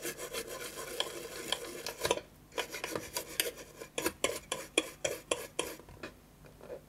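Toothbrush bristles scrubbing a small flight-controller circuit board wet with alcohol, cleaning it. A steady scratchy brushing for about two seconds, then a brief pause and quick separate strokes, several a second, which stop about a second before the end.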